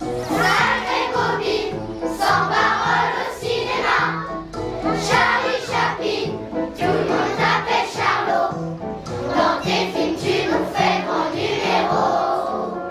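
Children's choir singing a song together over instrumental accompaniment with a steady, repeating bass line.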